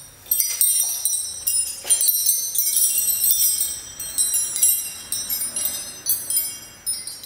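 High tinkling chimes, many small bell-like strikes ringing over one another at an uneven pace, growing louder about half a second in.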